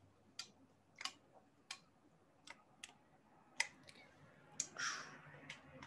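Faint, scattered clicks, about a dozen at irregular intervals, from the buttons and triggers of VR hand controllers being pressed, with a short soft rustle about five seconds in.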